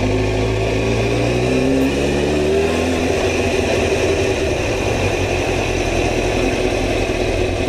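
Motorcycle engine rising in pitch as it accelerates for the first three seconds or so, then running on steadily under an even rush of wind and road noise.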